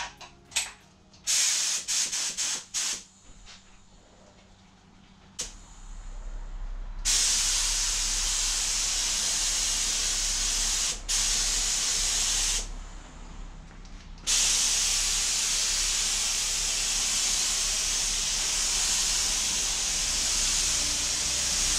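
Compressed-air paint spray gun hissing as base coat goes onto a car panel: a few short blasts in the first few seconds, then long continuous passes from about seven seconds in, broken by a brief stop around eleven seconds and a longer pause around thirteen.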